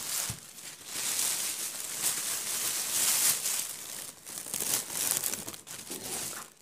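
Thin plastic shopping bag crinkling and rustling as it is handled, on and off with brief lulls.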